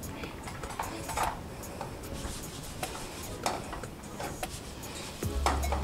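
Scattered light clinks and knocks of a nonstick frying pan being handled on the cast grate of a gas hob while a thin pancake cooks. A low, steady background music note comes in near the end.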